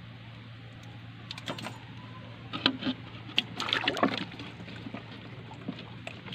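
A clear plastic bottle being handled: a cluster of clicks, knocks and crackles with some water sloshing, over a steady low hum.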